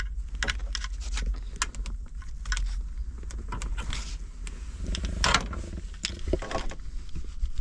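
Irregular clicks and rustles of wiring harnesses and small parts being handled, over a steady low hum.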